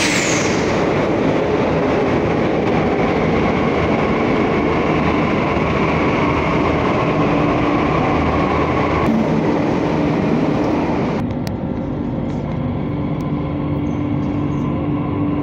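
Delhi Metro train pulling out of an elevated station: a steady electric motor hum with wheel and rail noise. The higher part of the sound drops away about nine and eleven seconds in as the train leaves.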